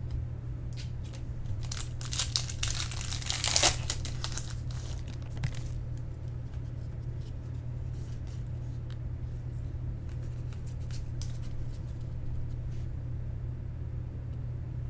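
Foil trading-card pack wrappers being torn open and crumpled, with a burst of crinkling about two to four seconds in, then scattered light rustles, over a steady low hum.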